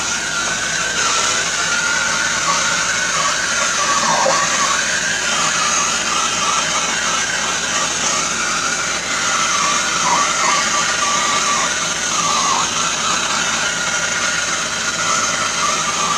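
Handheld heat gun blowing steadily over a wet acrylic pour to bring up silicone cells: a loud rushing hiss with a whistling whine that wavers and dips now and then as the gun is moved.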